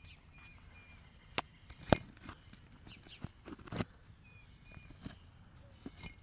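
Sharp clicks and knocks of a phone being handled and of footsteps while someone walks around the parked dirt bike, the loudest about two seconds in and near four seconds. A bird chirps faintly in short high notes, twice.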